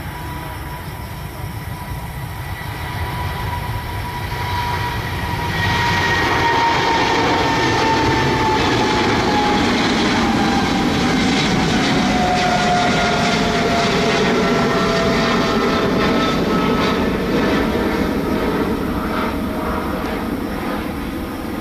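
Boeing 777-300ER's twin GE90-115B turbofans at takeoff thrust as the jet lifts off and climbs out: a steady jet noise that grows louder about five seconds in, with a high fan whine that slides slowly down in pitch as the aircraft passes and pulls away.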